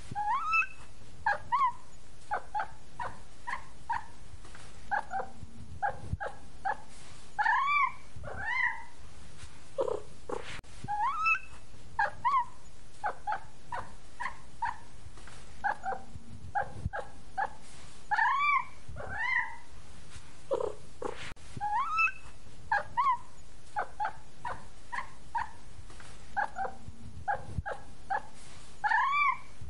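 Kittens mewing: many short, high mews with a few longer rising-and-falling ones. The same sequence repeats about every ten seconds, like a looped track.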